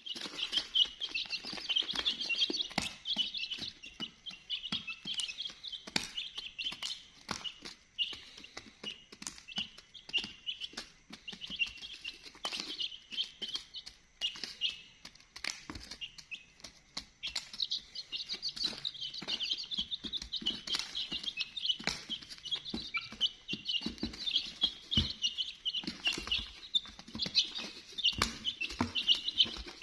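A group of baby chicks peeping without pause in short, high, overlapping chirps, with scattered sharp clicks and taps among them.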